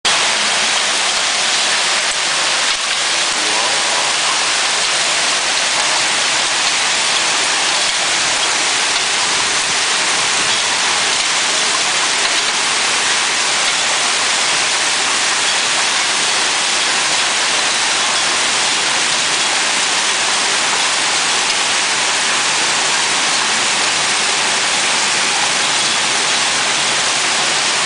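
Hailstorm: hail and rain falling hard and steadily on the street, rooftops and window ledge, a dense unbroken hiss of many small impacts.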